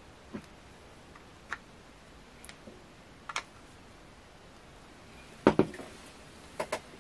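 Small, sparse clicks of a screwdriver working the screws in the plastic head of a laser air-assist diaphragm pump. Louder knocks come about five and a half seconds in, and a quick double knock follows near the end as the pump is handled.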